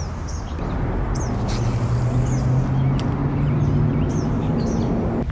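A steady low motor hum sets in about a second in and holds, with short high bird chirps repeating over it.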